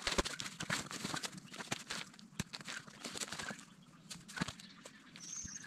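Rustling and crinkling of a stuff sack being handled and pushed into a backpack, with many scattered clicks and scrapes. A bird calls briefly near the end.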